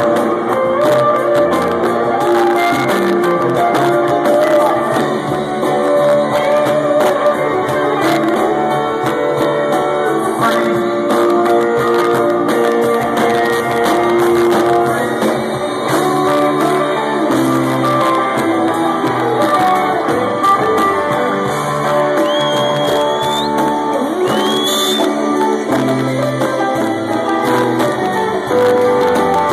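Live rock band playing: electric guitar, bass, keyboards and drums, loud and continuous. Recorded from within the audience on a phone's microphone.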